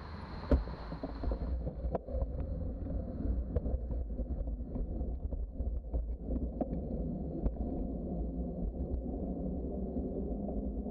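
Wind rumbling on a bicycle-mounted microphone as the bike rolls along a trail, with scattered clicks and small rattles. A steady hiss stops about a second and a half in.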